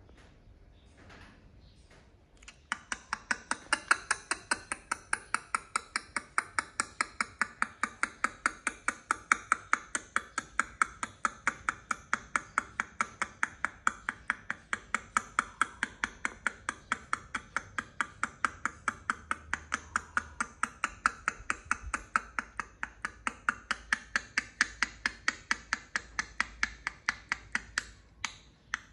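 Steady rhythmic tapping or knocking, about two to three sharp strokes a second, starting about three seconds in and keeping an even pace.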